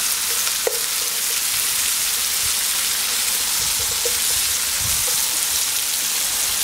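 Chopped carrots, celery root and onion sizzling steadily as they fry in rapeseed oil in a cast-iron Dutch oven, stirred with metal tongs. There is a light click a little under a second in.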